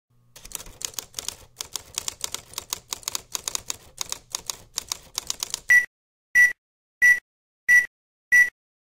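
Rapid, irregular typing clicks for about five seconds, then five short high beeps about two-thirds of a second apart.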